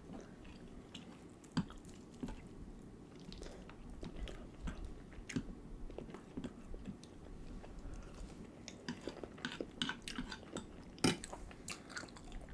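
Close-miked chewing and biting of food: wet mouth clicks and smacks, irregular and scattered, with a sharper smack about eleven seconds in.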